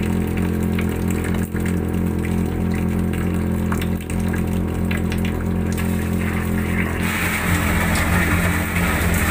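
Sewer suction machine running steadily, its engine-driven vacuum pump pulling water up a suction hose from a sewer gully. About seven seconds in, a louder hissing rush joins the drone.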